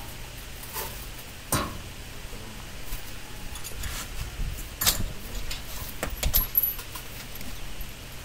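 A few sharp metallic clinks and taps, spaced irregularly a second or more apart, from steel bolts, nuts and hand tools being handled while bolting up a concrete block moulding machine.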